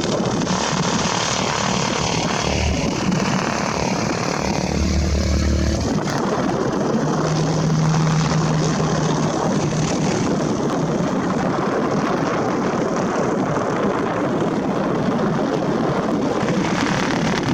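Propeller aircraft engine running, a loud, steady rushing noise with a brief low hum in the middle.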